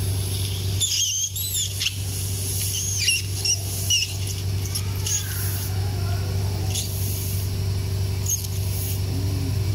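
Steady low hum, with short, high, squeaky chirps that come in a cluster in the first half and a few more later.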